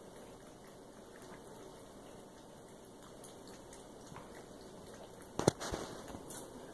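Kitten lapping water from a bathtub floor, faint and wet. About five and a half seconds in, one sharp click stands out, followed by a few lighter ticks.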